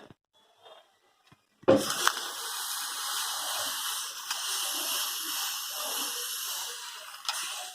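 A heated iron knife plunged into freshly ground green herbal leaf juice, sizzling and hissing loudly from a sudden start about two seconds in and fading near the end. In this folk remedy the sizzle is taken as the sign that the raw green medicine has been 'broken'.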